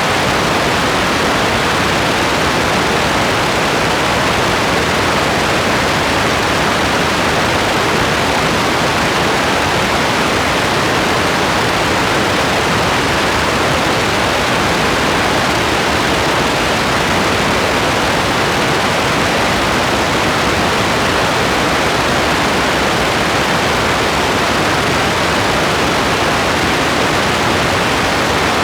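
Steady rain: an even, unbroken hiss of falling rain with no separate drops, thunder or other events standing out.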